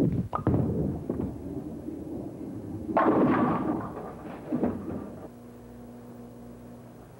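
Ten-pin bowling ball set down on a wooden lane with a thud and rolling away with a rumble, then hitting the pins about three seconds in with a loud crash and clatter that dies away by about five seconds. A steady hum follows.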